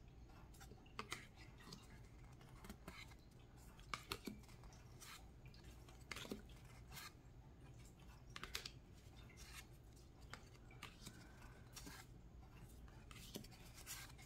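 Faint, irregular clicks and soft scrapes of stiff card stock as tarot-sized cards are slid one at a time off a deck and onto each other.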